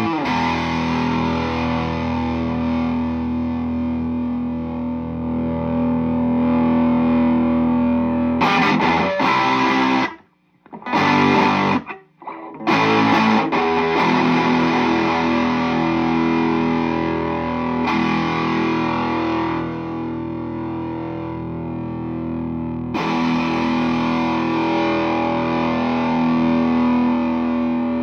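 Electric guitar played through a Flum Dilly distortion and boost pedal: distorted chords held and left ringing, broken near the middle by a few short stabbed chords with brief silences between them.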